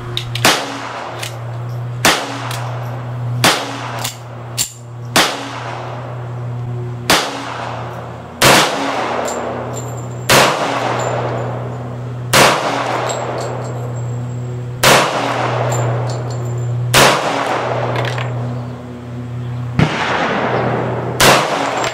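Colt 1911 Series 70 pistol fired slow and deliberately: about a dozen single shots spaced one and a half to two and a half seconds apart, each ringing briefly after the report. A few fainter shots fall between them.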